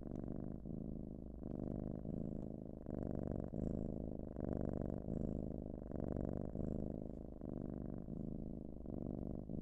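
Continuous cat-like purring that swells and eases in a steady rhythm, each swell a little under a second long.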